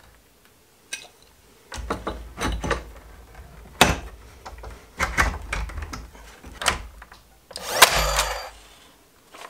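Plywood frame pieces knocking and bumping as they are pushed into place, the sharpest knock about four seconds in. Near the end, a cordless nailer fires once into the plywood joint: a short burst of about a second with a faint whir in it.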